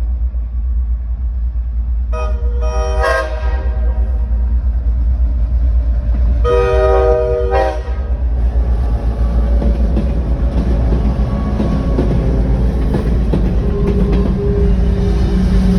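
A train sounds its horn, the 'train whistle': two short blasts, then one longer blast about six to eight seconds in. After that the passing cars clatter and rattle over the rails, the noise building toward the end, over a steady low rumble.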